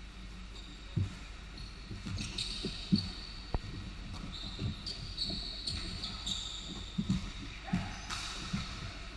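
A basketball bouncing on a hardwood court in irregular thuds, with rubber-soled sneakers squeaking on the floor as players move.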